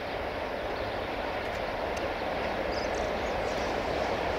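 A freight train hauled by an LDH diesel-hydraulic locomotive approaching from a distance, its running noise steady and slowly growing louder as it nears.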